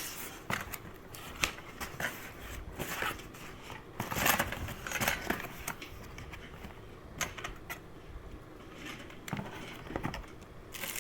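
Hands handling smart-lock parts and packaging: scattered clicks and taps with short rustles, the loudest rustle about four seconds in.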